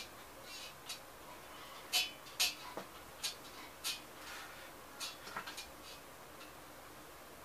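An oil-paint brush tapping and scratching on the palette and canvas: a string of short, irregular ticks, the loudest two about two seconds in.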